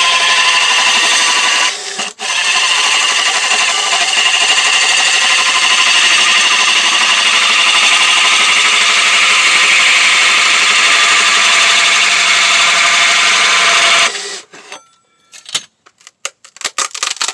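Cordless drill driving a saw attachment through quarter-inch plywood, running steadily with a brief dip about two seconds in. It stops sharply about fourteen seconds in, followed by a few small knocks and clicks.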